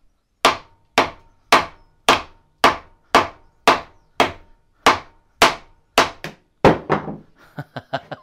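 A mallet striking the cylinder head of a Reliant 700cc engine, about two sharp blows a second, each with a short ring, then lighter, uneven taps near the end. He is trying to shake the head loose where it is stuck on corroded studs.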